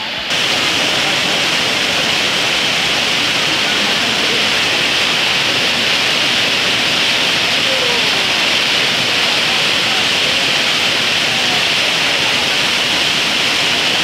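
Urlătoarea waterfall pouring down a rock face, heard up close as a loud, steady rush of falling water.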